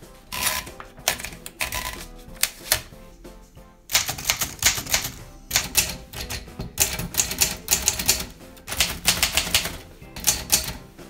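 Manual typewriter being typed on: sharp clacks of the typebars striking the paper, scattered at first and then in quick runs from about four seconds in, with background music underneath.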